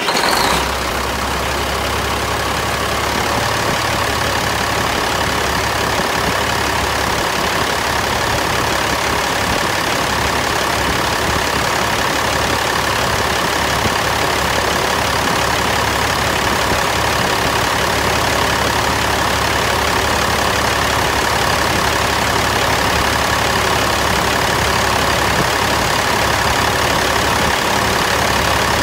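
Caterpillar C12 inline-six diesel engine just started, settling within the first second into a steady idle.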